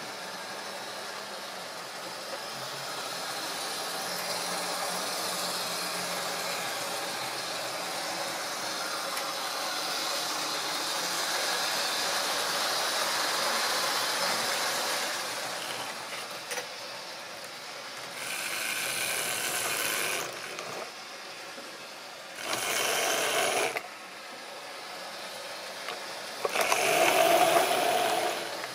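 Model railway trains running on sectional track: a steady whirr and clatter of small electric motors and wheels on the rails. In the second half three louder surges come as trains pass close by, the last the loudest.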